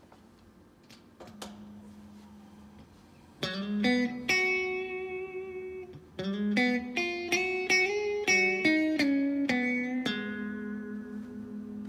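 Electric guitar, a Maybach Teleman T61, played through a small valve combo amp. It starts with a few soft notes, strikes a chord about three and a half seconds in, plays a quick run of single notes from about six seconds, and ends on a chord left ringing.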